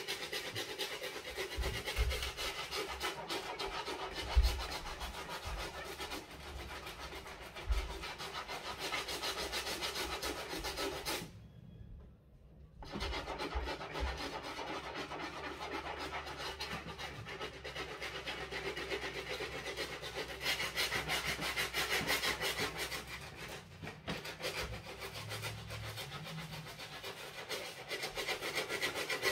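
Stiff-bristle brush scrubbing an adidas Yeezy Boost 350 Zebra sneaker in rapid back-and-forth strokes, with a short break about eleven seconds in and a few light knocks in the first several seconds.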